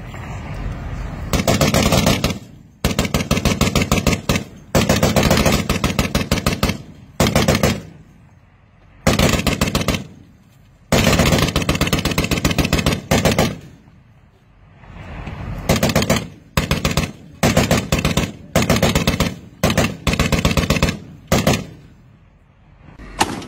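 Machine guns mounted on Humvee turrets firing about a dozen bursts of rapid automatic fire, each half a second to two and a half seconds long, with short pauses between. The bursts come shorter and quicker after the middle.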